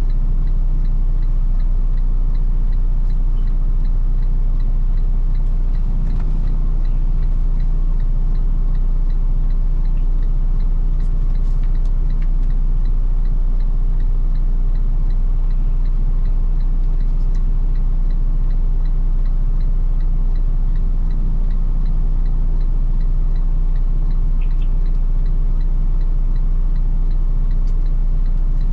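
Semi-truck diesel engine idling, heard from inside the cab: a steady low hum with a faint, evenly spaced ticking over it.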